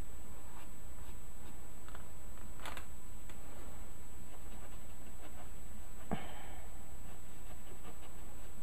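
Steady low electrical hum under faint rubbing of a paper blending stump working charcoal into drawing paper. Two brief soft sounds come about three and six seconds in.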